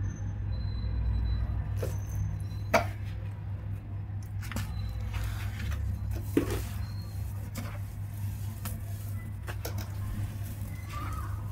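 Hands crumbling dry cement lumps into wet cement paste and squeezing the clumps: scattered soft crunches, crackles and squishes, with two sharper taps about three and six seconds in, over a steady low hum.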